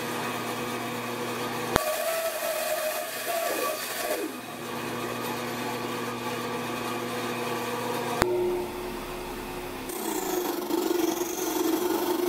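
Band saw motor running steadily, its blade cutting plywood with the pitch bending under load for a couple of seconds. About eight seconds in the sound changes to a drill-driven homemade disc sander running, and from about ten seconds the plywood is sanded against the disc with a rubbing sound.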